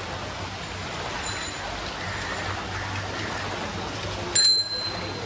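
Heavy rain falling in a steady hiss. About four and a half seconds in, a bell rings once, sharply and loudly, for under a second.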